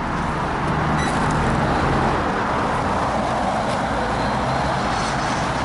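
Road traffic noise: a steady hiss of tyres and engines, swelling slightly as a vehicle passes about two seconds in.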